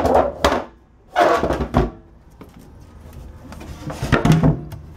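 Knocks and scrapes of a fiberglass deck hatch lid over a boat's live well being handled and shut, in three short bursts.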